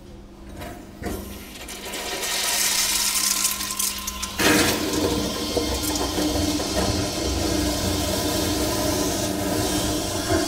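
Acorn vacuum-operated toilet flushing. A hiss builds from about two seconds in, then a sudden louder rush comes about four seconds in and carries on steadily with a low rumble.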